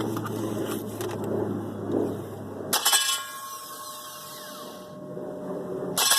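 Two sharp metallic clangs, one about three seconds in and one near the end, each leaving a ringing tone that slowly falls away. Before the first clang a steady low hum runs.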